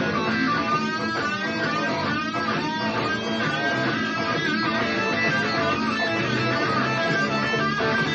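Lead guitar improvising blues lines with string bends and vibrato over a dirty blues backing track with bass.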